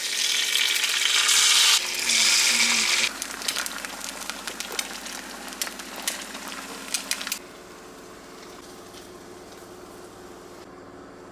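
Food sizzling and crackling in a hot frying pan, loudest for the first few seconds, then easing to a quieter steady sizzle about seven seconds in.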